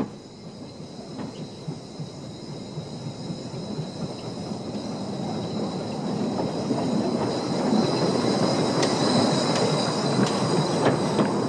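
Narrow-gauge steam locomotive Merapi, hauling its train, coming closer and passing, growing steadily louder. A steady high-pitched squeal runs through it, and sharp clicks of wheels over the rails come in the second half.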